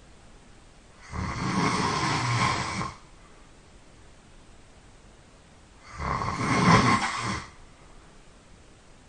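A sleeping person snoring loudly: two long snores about five seconds apart, each lasting nearly two seconds.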